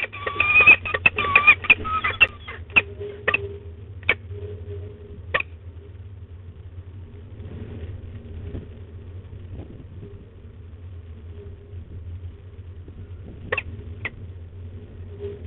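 Peregrine falcon giving a wavering call for about two seconds at the start, among a run of sharp clicks and taps that thin out after a few seconds. After that comes a steady low hum, with two more clicks near the end.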